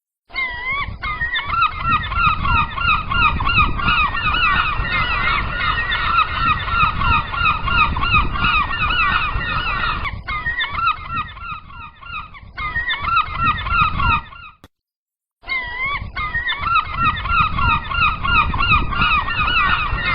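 A large flock of gulls calling continuously, many calls overlapping in a dense chorus, over a low rumble. The sound cuts out briefly about fifteen seconds in.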